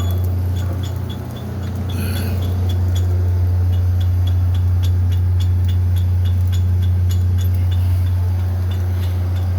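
Steady, loud low machine hum, with faint light ticks repeating about three to four times a second over it.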